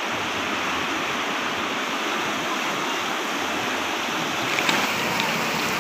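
Shallow, rocky river running fast through rapids: a steady, even rush of water.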